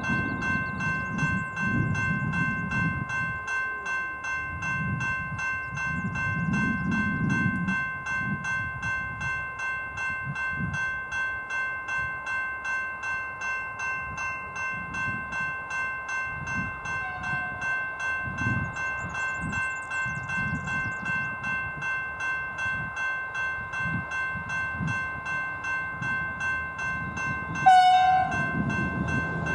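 Railway level-crossing bell ringing steadily with fast, even strokes. Near the end, an approaching V/Line VLocity diesel train gives a short horn blast.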